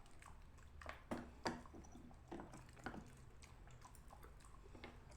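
A knife splitting soft dried clay: a few crisp cracks and crunches, the loudest about a second and a half in.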